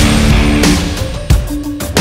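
Background rock music with distorted electric guitar and a driving drum beat; the full band drops out briefly a little past halfway, then comes back with a hard hit.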